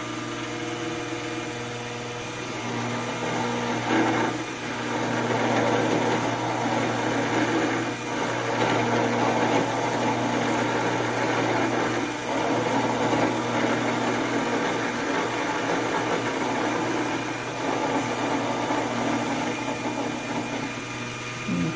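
775 DC motor spindle running at 20 volts, belt-driving a 10 mm end mill that is milling aluminium as the cut is hand-fed: a steady motor hum, joined about two seconds in by a rougher cutting noise that swells and eases several times.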